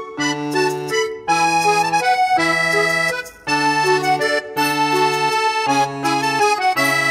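Background music: a light, bouncy accordion tune over a low bass note that sounds about once a second.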